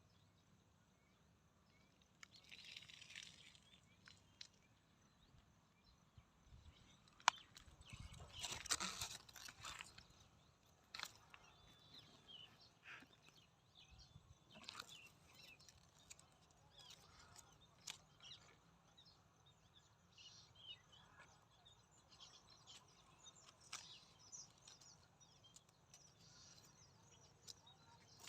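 Faint outdoor rural ambience: scattered soft rustles and crunches, a louder rustling crunch about eight seconds in, and faint high bird chirps.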